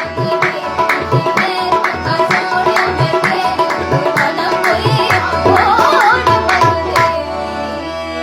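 Indian devotional-style music with no singing: tabla playing strokes in a steady rhythm over a sustained drone, a melodic line wavering over it midway. The tabla stops about seven seconds in, leaving the held drone.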